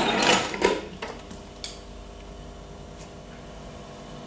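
A few sharp clicks as keys on a signal box's desk control panel are pressed, over a steady low electrical hum.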